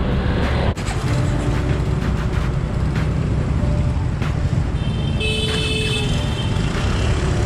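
Steady low rumble of a two-wheeler riding through city traffic, engine and wind on the microphone. A vehicle horn honks for about a second a little past the middle.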